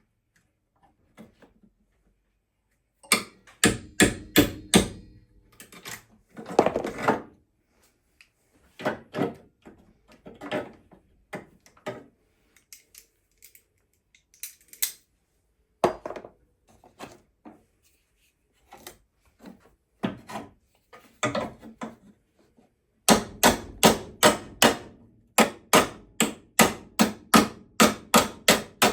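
Hammer blows on a bent metal bracket of a salvage car, straightening it. A quick run of strikes a few seconds in, scattered single blows after that, then a long steady run of about three blows a second near the end.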